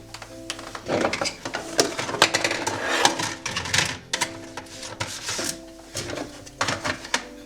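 Household objects clattering and rattling as they are handled and moved about, a quick irregular run of knocks and clicks that is busiest from about one to four seconds in.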